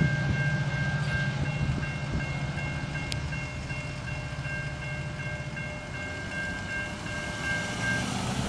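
Railroad crossing bells ringing in a steady, repeating pattern while the gates lift, stopping near the end. Beneath them is the low rumble of the passing Metra commuter train, slowly fading as it moves away.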